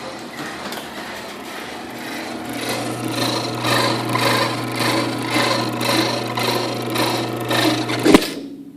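Chamberlain Whisper Drive garage door opener running with an annoying squealing noise, pulsing in a steady rhythm over the motor's hum. It ends in a loud clunk about eight seconds in, and the running stops.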